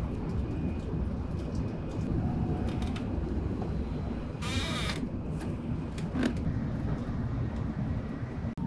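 Steady low rumble inside an N700S Shinkansen car running at speed. About halfway through comes a short, high creak, and a single click follows a little later.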